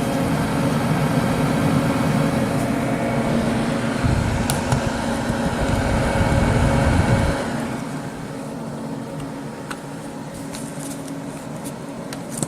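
Desktop computer under stress load, running with a steady pitched whine over the fan noise, which the owner thinks comes from the graphics card or the power supply. About seven seconds in, the sound drops noticeably quieter to a steady hum, and a few light clicks come near the end.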